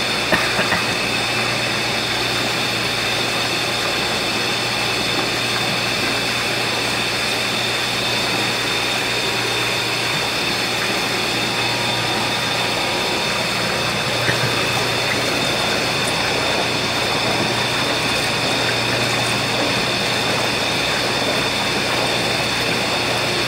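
Water gushing steadily from a hose into a plankton filter net standing in a tub of water, as rotifers are filtered out, over a steady low motor hum.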